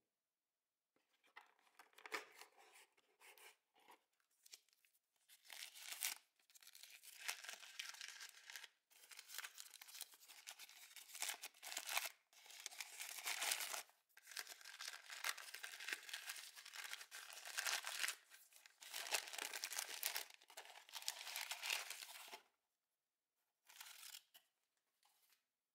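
Paper wrapping rustling, crinkling and tearing as it is unwrapped by hand from a hand coffee grinder's wooden body, in irregular bursts. It stops about three seconds before the end, with two short rustles after.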